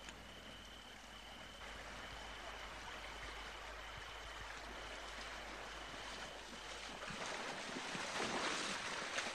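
River water flowing over a shallow gravel bed, with splashing that swells near the end as people wade through the shallows.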